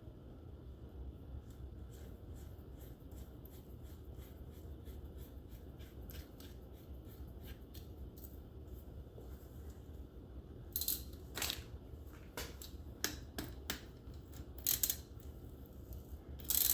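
Hand tools and metal parts clicking and ticking during transaxle disassembly: a run of light ticks, then several sharper clicks near the end.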